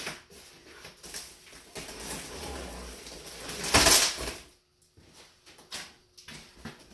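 Crate packaging being cut open by hand: irregular scraping and rustling with a few clicks, and one loud burst of noise about four seconds in.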